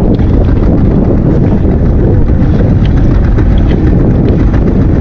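Strong wind buffeting the microphone on an open boat: a loud, steady low rumble.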